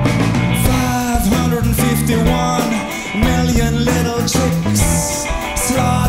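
A live band playing a blues song: electric guitar over bass guitar and drums.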